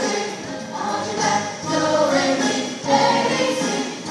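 High school choir singing an upbeat song with musical accompaniment.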